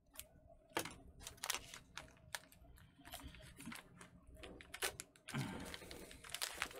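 Scissors snipping through a plastic MRE pouch, a string of sharp separate clicks and cuts, then a short stretch of crinkling as the pouch is handled and pulled open near the end.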